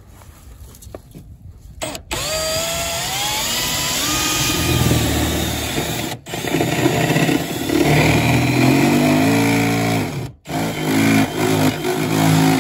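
Milwaukee cordless drill with a step bit cutting a hole through the sheet-metal panel of a mini-split outdoor unit. About two seconds in the motor spins up with a rising whine and runs loudly as the bit cuts, stopping briefly twice and starting again.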